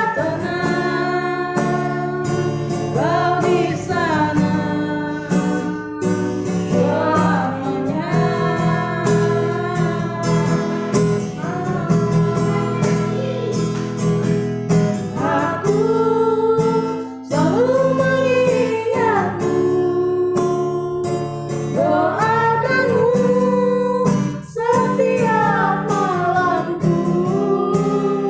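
A busker singing to acoustic guitar accompaniment, the voice carrying the melody in long held phrases over strummed chords.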